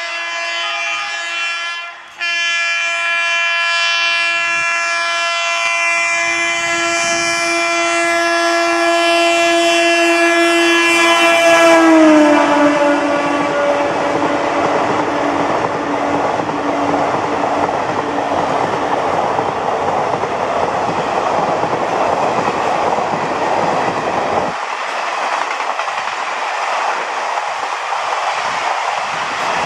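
A WAP-4 electric locomotive's horn sounds a long, loud chord of several notes, broken briefly about two seconds in. The horn's pitch drops sharply about twelve seconds in as the locomotive speeds past. Then the coaches of the superfast express rush past with a loud rumble and clickety-clack on the rails, and the deep rumble drops away about 24 seconds in.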